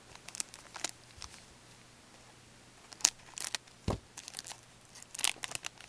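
Hockey card pack wrapper crinkling and tearing as gloved hands open and handle it, in short scattered crackles, with a soft low thump about four seconds in.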